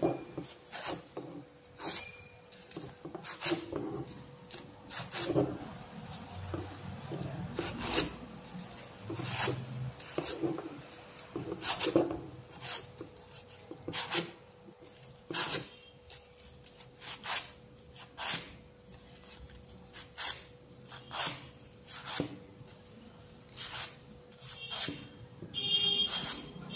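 Paper rustling and crinkling in short, irregular crackles, about one a second, as a fringed paper strip is rolled and squeezed around a flower stem by hand.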